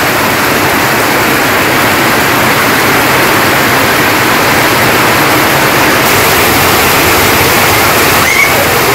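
Heavy rain falling steadily on corrugated tin roofs and into a flooded yard.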